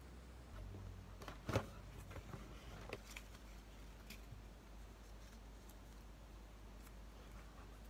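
Quiet handling sounds at a kitchen counter over a low room hum. There is one sharp knock about a second and a half in, a few lighter clicks just after it, and then faint ticks and rustles as a tea bag is taken out of its paper sachet.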